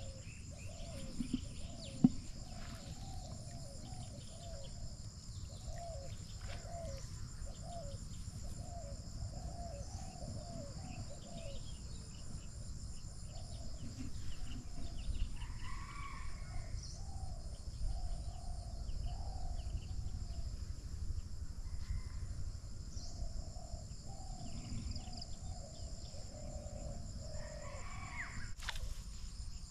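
Outdoor ambience: a steady high-pitched insect chorus, under a run of short repeated animal calls, a couple a second, with a sharp click about two seconds in.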